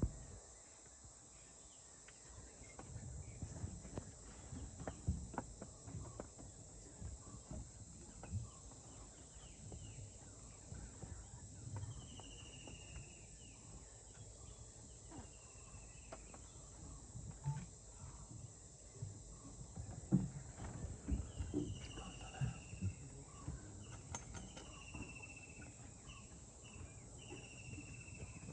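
Forest ambience: a steady high-pitched drone of insects, with a bird repeating a short call that falls in pitch, about five times in the second half. Soft low knocks and rustles come and go underneath.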